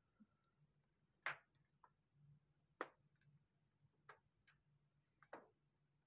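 Near silence broken by about five short, sharp clicks spread unevenly over several seconds, over a faint steady low hum.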